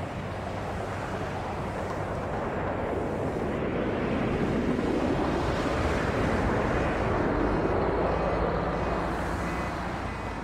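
A burning oil well gushing fire makes a steady rushing noise, with a heavy diesel dump truck's engine running underneath. The noise swells through the middle as the truck drives past, then eases off near the end.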